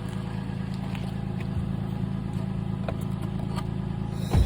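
Pickup truck engine idling steadily, with a few light clicks and one loud thump near the end.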